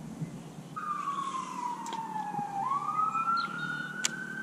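Baitcasting reel whining as line is cranked in against a small bass; the pitch slides down, jumps back up and rises as the cranking speeds up again. A single sharp click near the end.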